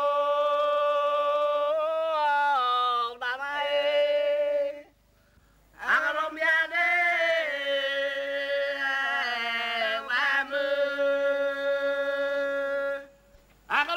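Vocal chanting in long held notes that slide between steady pitches. It comes in two long phrases, with a breath-length gap about five seconds in and another near the end.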